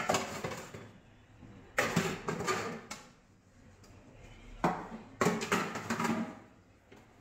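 A metal plate scrubbed with a handled sponge in a stainless-steel sink: three spells of scraping and rattling, each about a second long, with short quiet gaps between.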